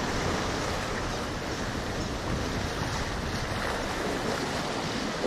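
Small waves washing over shoreline rocks, with wind buffeting the microphone in a steady rushing noise.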